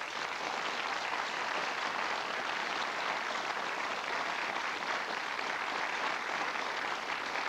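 Studio audience applauding, an even, steady clapping.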